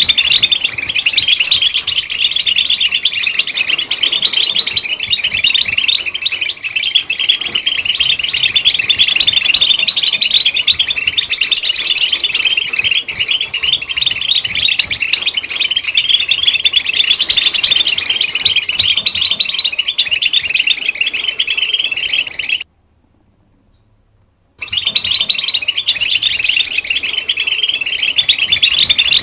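European goldfinch song: a fast, continuous twittering chatter of high chirps and trills. It stops dead for about two seconds around two-thirds of the way through, then resumes.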